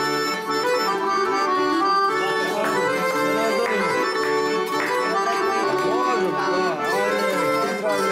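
Live tamburica band music: two accordions playing a traditional tune over a plucked tambura, with a voice singing along through the middle.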